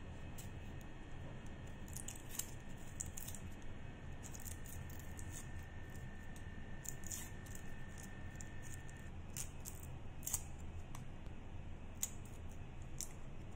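Kitchen knife peeling red onions and garlic by hand: irregular short scratchy clicks and scrapes as the blade catches and strips the dry papery skins.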